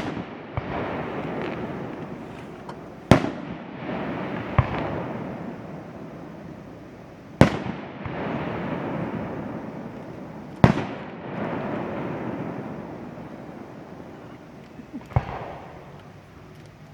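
Aerial fireworks shells bursting: about six sharp bangs a few seconds apart, each followed by a long echoing rumble.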